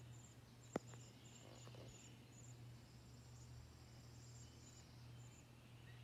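Faint outdoor ambience: a high, broken insect trill over a low steady hum, with one sharp click about a second in.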